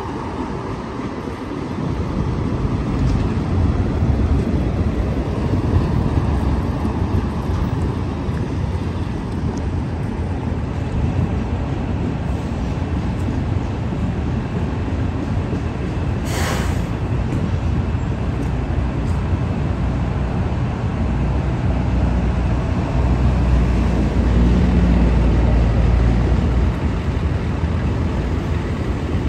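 Autorack freight cars rolling past in a steady low rumble, mixed with road vehicles driving by close at hand. A short hiss cuts through about halfway in, and the rumble swells a few seconds before the end.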